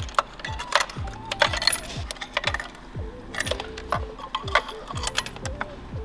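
Metal tools and spark plugs clinking and clicking as new spark plugs are fitted into the engine, over background music with a steady beat.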